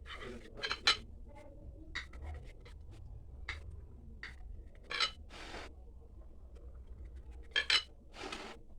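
Kitchen utensils scraping and tapping on a cake or dish: a series of short scratching strokes and light knocks, the strongest about a second in, about five seconds in, and two close together near the end.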